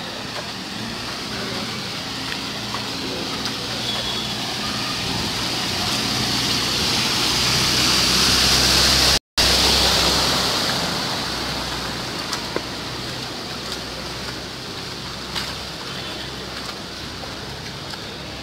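Heavy rain hissing on a flooded street, swelling louder toward the middle and then easing off, with a faint low hum underneath. The sound cuts out for a split second near its loudest point.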